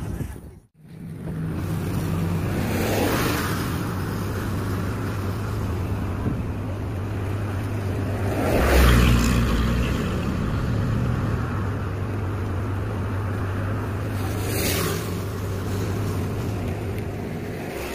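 Road traffic: vehicles passing by one at a time, the loudest about nine seconds in, with others around three seconds in and near the end, over a steady low hum.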